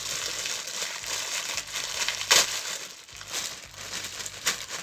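A parcel's packaging crinkling and rustling as it is handled and opened, with one sharper, louder crackle a little past two seconds in.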